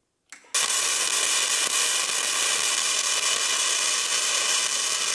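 Wire-feed welder arc crackling steadily as it welds a 1/4-inch-wall steel square-tube leg to the table frame; the arc strikes about half a second in and runs without a break.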